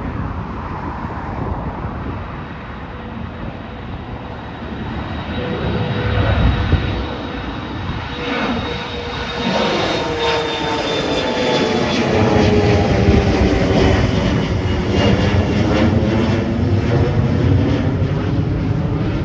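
Jet airliner's engines going past, growing louder from about the middle, with their whine sliding down in pitch as the plane goes by.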